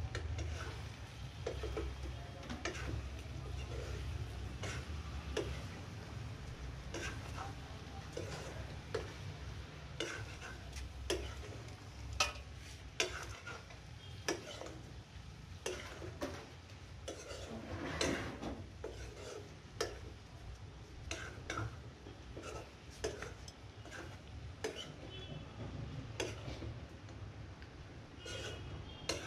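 Chicken being stirred in a metal pan over a firewood stove: a wooden spatula scraping and knocking against the pan in irregular clicks, a few a second, with a longer scrape about two-thirds of the way through. A low steady hum runs underneath.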